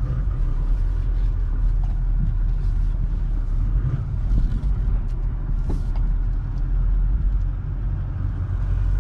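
Toyota Land Cruiser 70's 4.5-litre V8 turbo diesel running with a steady low rumble, heard from inside the cab as the pickup is driven slowly through a turn.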